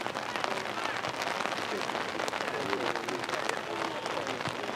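Steady patter of light rain, with many fine ticks over a constant hiss, and faint distant voices from players and spectators.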